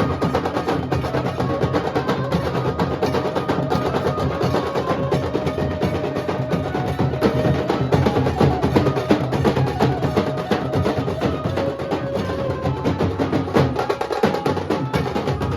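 Nasik dhol drumming: large barrel dhols and a tasha played together in a fast, dense, continuous rhythm, with a few held pitched notes above the drums.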